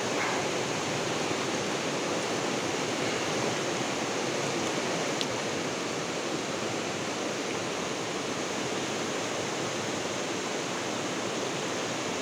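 Swift river current rushing past: a steady, even wash of water noise.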